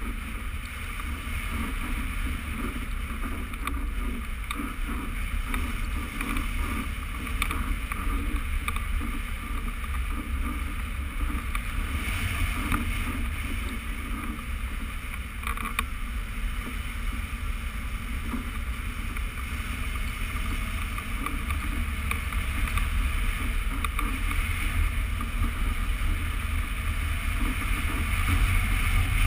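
Steady wind rush buffeting the microphone of a camera carried on a hang glider in flight, a low rumble with a hissing band above it, growing a little louder near the end.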